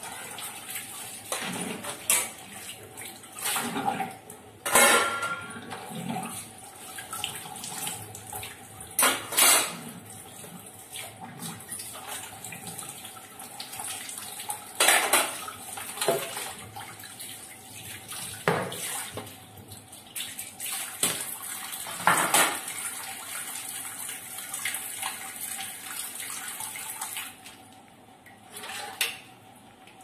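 Tap water running into a kitchen sink as steel and plastic dishes are rinsed and washed by hand. Sharp clatters of dishes knocking against each other and the sink come every few seconds. The tap is shut off near the end.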